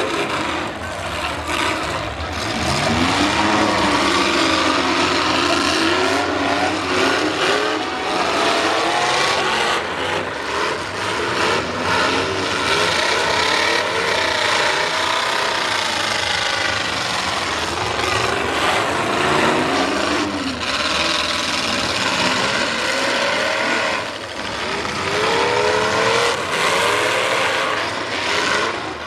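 V8 engines of several full-size demolition derby cars revving hard, their pitch rising and falling over and over, with scattered crashes of the cars hitting each other.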